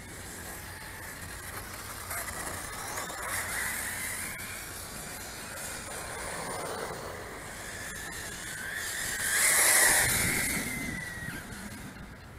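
Radio-controlled cars running on brick pavers, their motors whining up and down with the throttle. One passes close about ten seconds in, its whine rising and then falling as it goes by, the loudest moment.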